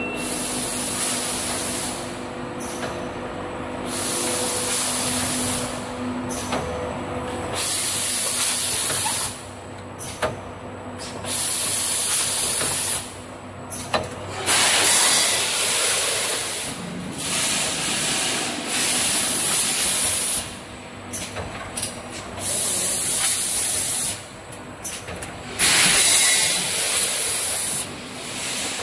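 Rotary premade-pouch packing machine running, with loud bursts of compressed-air hiss about every three seconds, each lasting a second or two, over steady mechanical running noise.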